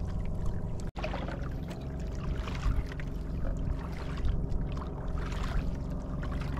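Outrigger boat's engine running steadily. The sound drops out briefly about a second in.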